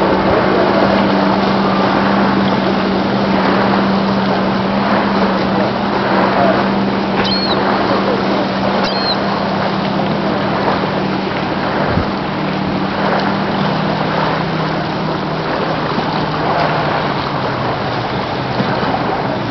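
Cigarette-style offshore powerboat running at speed, its engines giving a steady low drone under a constant rush of wind and water noise. The drone weakens a little after about fifteen seconds.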